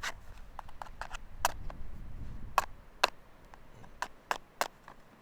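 A series of sharp knocks, irregular at about one or two a second and coming faster and louder in the second half, with a low rumble about two seconds in.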